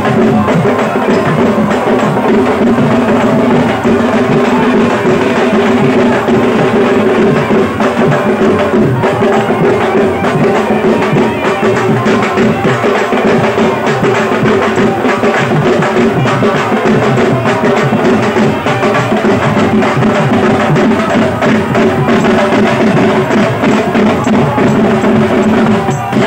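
Loud, percussion-heavy dance music: rapid, continuous drumming with sharp clacking strokes over a steady droning melody.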